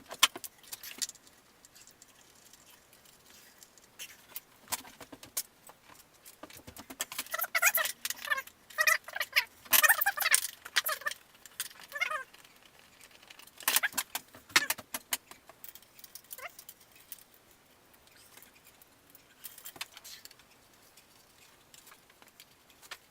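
Hand tools and small metal parts clinking and jangling in scattered bursts, busiest around the middle, as a motorcycle's upper parts are taken apart.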